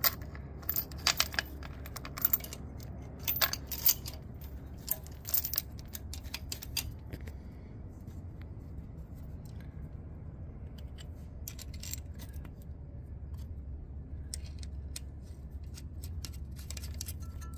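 Steel lifting chain links, a bolt and a washer clinking and rattling in the hand as the bolt is fitted through the chain's end link and threaded into the engine. A quick run of sharp clicks in the first several seconds and a few more later, over a steady low rumble.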